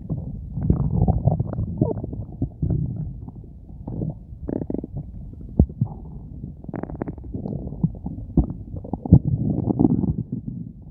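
Hungry human stomach growling: irregular low gurgling rumbles, broken by several sharp short pops.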